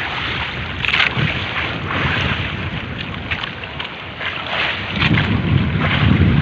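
Small motorboat under way at sea, engine and hull rumbling with water rushing past and wind buffeting the microphone; the low rumble grows louder about five seconds in.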